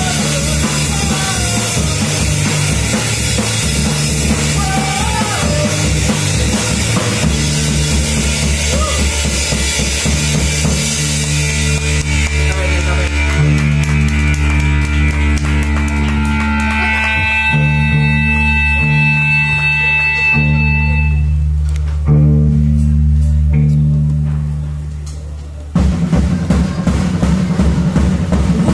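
Live rock band playing through amplifiers: drum kit, electric bass and electric guitars. About eleven seconds in it shifts to heavy sustained chords; a loud chord struck a little over twenty seconds in is left to ring and fade, then the full band crashes back in near the end.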